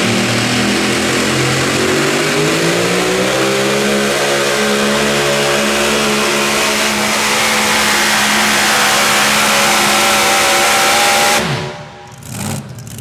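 Super modified 4WD pulling truck's engine running hard under load, its pitch slowly climbing as it drags the sled, then cutting off suddenly near the end as the pull ends.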